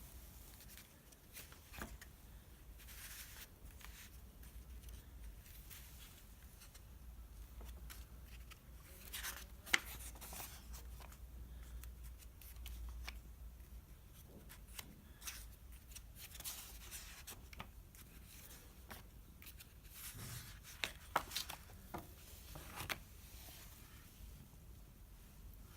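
Hermes 3000 portable typewriter being handled: scattered, irregular mechanical clicks and rustles, with a few sharper clicks now and then.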